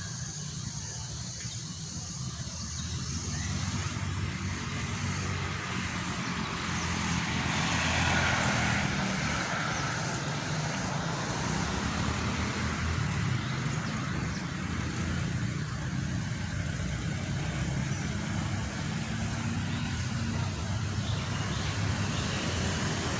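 Motor vehicle engine running with road traffic noise; a vehicle grows louder and passes about eight seconds in.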